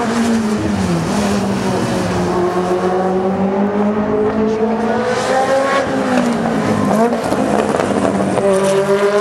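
Peugeot 205 Turbo 16 Group B rally car's turbocharged four-cylinder engine at high revs on the move, its pitch falling and climbing again with gear changes. About seven seconds in, as the revs drop, it gives a short crackle of pops.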